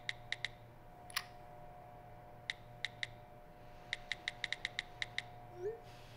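Smartphone keyboard clicks as a text message is typed: quick, irregular taps in short runs over a faint steady hum. A short rising sound near the end comes as the message is sent.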